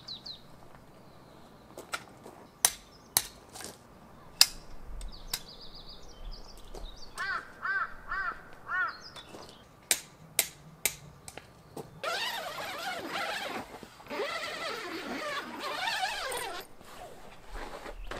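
Outdoor birdsong: short chirps, a trill and a run of five or six repeated rising-and-falling calls, then a dense stretch of many overlapping bird calls a few seconds from the end. Scattered sharp clicks or taps come through the first half.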